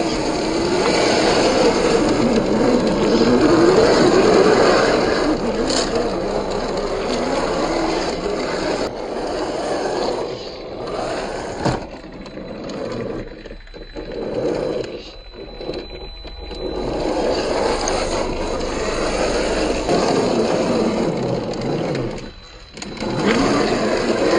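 Axial SCX10 III 1/10-scale RC crawler's 540-size 35-turn motor and gearbox whining, the pitch rising and falling with the throttle as it crawls over rock, with tyres scraping and knocking on stone. The whine mostly drops away for a few seconds about halfway through and again briefly near the end.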